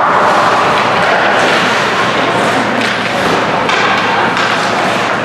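Ice hockey game in an indoor arena: a steady din of rink and crowd noise with scattered thuds from sticks, puck and boards.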